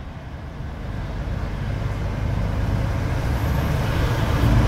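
Truck diesel engine running as the truck drives on, a low rumble that grows steadily louder.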